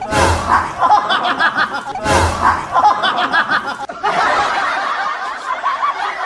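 Laugh track: a short laugh looped, repeating identically about every two seconds, then a different laugh from about four seconds in.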